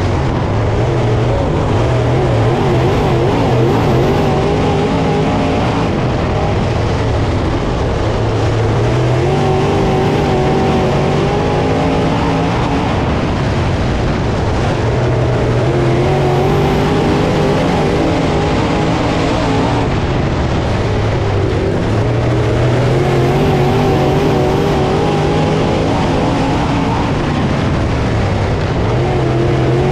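Pro crate late model's 604 crate small-block V8 at racing speed, heard from inside the car. Its pitch climbs on the throttle and drops as the driver lifts, over and over, lap after lap.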